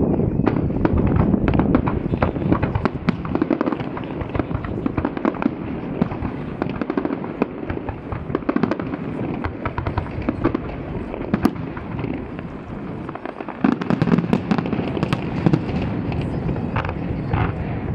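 Aerial firework shells bursting in quick succession, a dense run of bangs and crackles, with a louder flurry of bursts about three-quarters of the way through.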